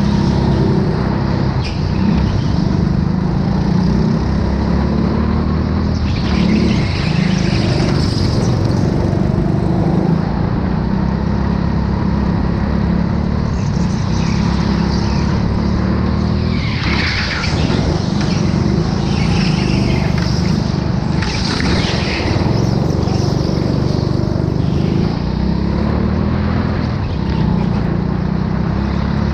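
Go-kart running laps, its motor a steady drone whose pitch rises and falls gently, with higher sweeping sounds coming and going about halfway through.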